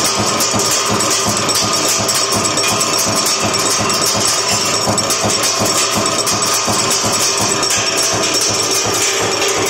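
Steel wire nail making machine running, its heading and cutting strokes making a fast, steady clatter of repeated knocks.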